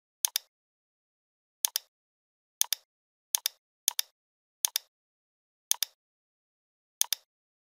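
Computer mouse button clicks, each a quick press-and-release pair, about eight times at uneven intervals, with dead silence between them.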